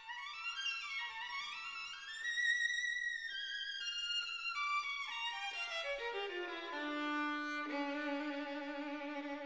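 Background music: a violin melody that climbs and falls, then steps down about halfway through to long, low held notes.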